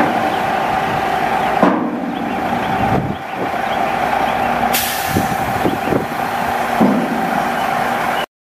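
International DT466 diesel engine of a Sterling L9500 dump truck running steadily with a constant whine, a few knocks, and a sudden hiss of air about five seconds in. The sound cuts off just before the end.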